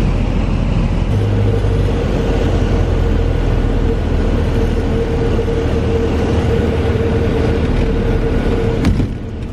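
Light single-engine plane's engine and wind noise heard inside the cabin during landing, a steady loud drone with a held tone through most of it. A sharp click comes near the end, and the noise drops after it.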